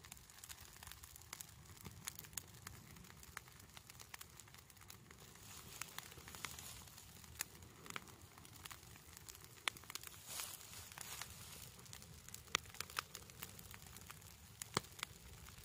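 Pile of dry fallen leaves smouldering in a small bonfire, giving off faint, irregular sharp crackles and pops over a low hiss, with a cluster of louder crackles about ten seconds in.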